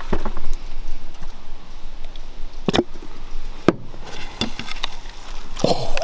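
A few sharp taps and clicks from a plastic squeeze bottle and plate being handled, over a steady background hiss.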